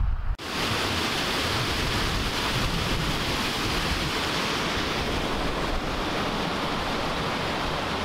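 A low rumble cuts off about a third of a second in, giving way to a steady rushing noise, even across low and high pitches, of an open-air scene.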